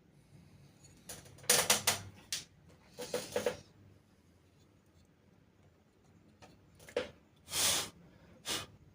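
Clicks, taps and a short scrape of small computer parts being handled as the heatsink assembly is set back onto a mini PC's freshly pasted CPU. The clicks come in small clusters, with a rub near the end.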